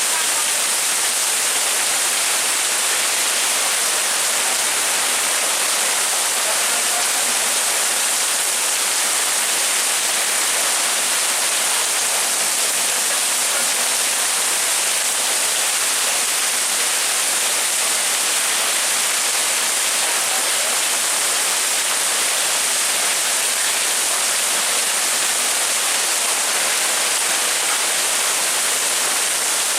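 Heavy rain pouring down steadily, a constant hiss of water without breaks.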